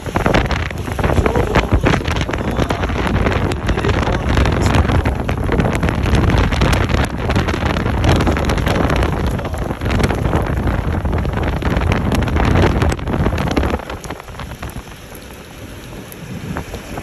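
Hail and heavy rain drumming on a car, a dense patter of sharp hits over rushing wind noise. It quietens about fourteen seconds in.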